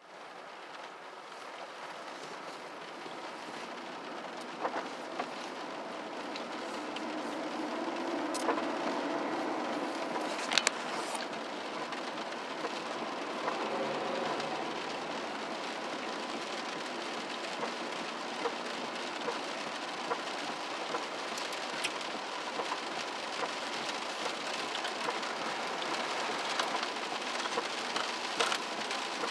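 Steady rain falling, with scattered sharper drips landing close by. It grows louder over the first several seconds, then holds steady.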